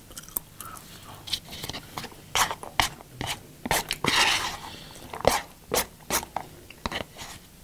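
A person eating from a bowl with a spoon: chewing, lip smacks and slurping sips, heard as a run of short irregular clicks and smacks.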